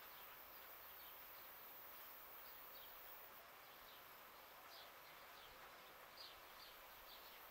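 Near silence: faint rural outdoor ambience, a steady hiss with faint, short high chirps that come more often in the second half.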